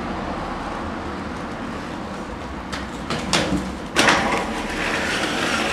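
Raw camcorder sound of inline skating on pavement: a steady rolling rumble, then several sharp clacks and knocks of skates a few seconds in, growing louder near the end.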